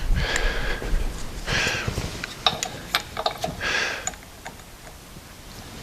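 A few light metallic clicks and clinks of parts and tools being handled on a workbench, mostly in a cluster in the middle, between breaths that come about every two seconds.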